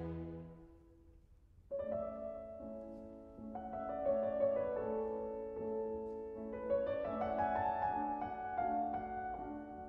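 Slow classical piano music from the Largo of a piano concerto. A held chord dies away in the first second, then the solo piano enters about two seconds in with a slow, quiet melody over repeated low notes.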